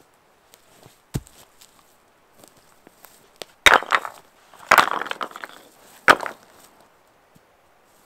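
Firewood being split with an axe on a chopping block. There are three loud chops a second or so apart in the second half, the middle one trailing into a clatter of wood, with a softer knock about a second in.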